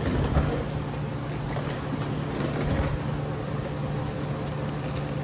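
Steady low mechanical hum, like a running fan or machine, with a few light clicks.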